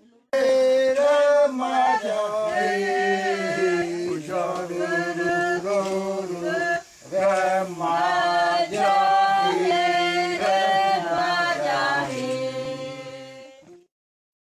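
Several voices singing a Uitoto ritual chant together, with a low voice holding a steady tone under the higher melodic lines. It cuts in suddenly, breaks off for a moment about halfway, and fades away near the end.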